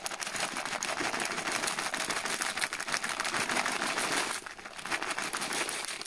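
Crispy fried onion flakes shaken from a plastic bag into a metal pot of dried vegetable flakes: a dense crackle of crinkling plastic and dry flakes falling, with a short lull a little past halfway.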